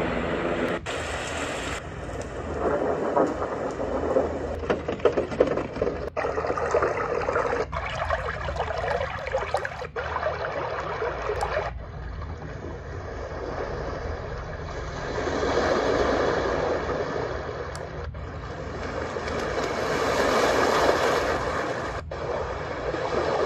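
Magicteam white-noise sound machine playing a series of its built-in nature-sound tracks: steady rushing, water-like noise, switched to a new track every few seconds with a brief cut between each. One track swells and ebbs slowly.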